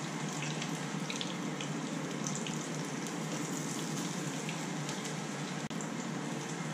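Breaded whiting goujons frying in hot oil in a frying pan: a steady sizzle dotted with small crackles and pops.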